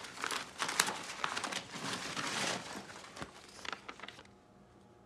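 Paper rustling and crinkling as a gift is unwrapped, with scattered small clicks, stopping about four seconds in.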